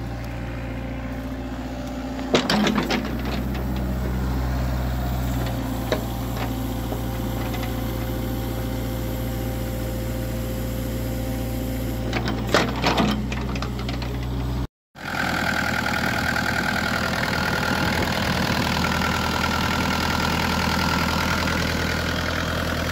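The four-cylinder diesel engine of a Kubota KX161-3 mini excavator runs as the arm and bucket are worked, its note shifting a couple of times, with bursts of sharp knocks about two seconds in and again around twelve seconds. After a short break the same engine is heard close up through its open engine compartment, running steadily.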